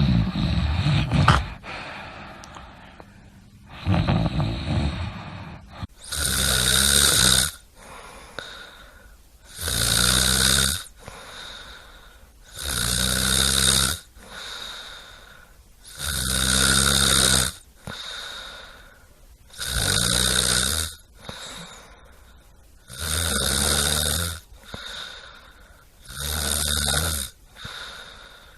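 A person snoring. Two snores of a different character come in the first few seconds, then seven regular snores follow, about one every three and a half seconds, each a low buzzing rasp about a second and a half long, with faint breathing between.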